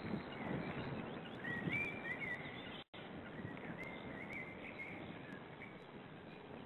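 Steady hiss of outdoor woodland ambience through a nest-camera microphone, with a bird's short wavering calls twice, around two and four seconds in. The sound cuts out briefly just before three seconds.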